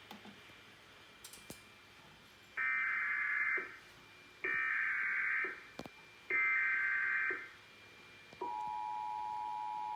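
Emergency Alert System SAME header: three one-second bursts of warbling digital data tones, about a second apart, encoding a tornado warning. About eight seconds in, the steady two-tone EAS attention signal begins.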